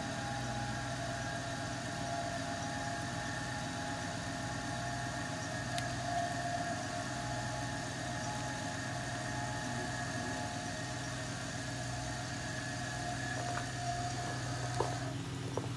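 Electric wheelchair crane on a pickup running under its hand control, a steady motor whine over a low hum; the whine stops about fifteen seconds in with a couple of clicks.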